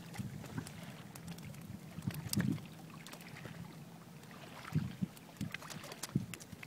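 Small waves lapping against a rocky shore, with wind on the microphone, and a few short knocks and clicks on top, the loudest a little over two seconds in and near the end.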